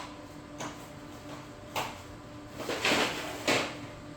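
Handling noises of printer parts: a few short clacks and scrapes, the loudest cluster about three seconds in, over a faint steady hum.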